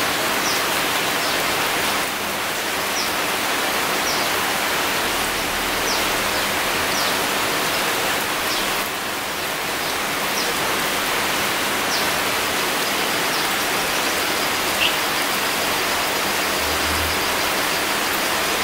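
Steady rain falling on foliage: a dense, even hiss of drops, with a few brief high, falling chirps now and then.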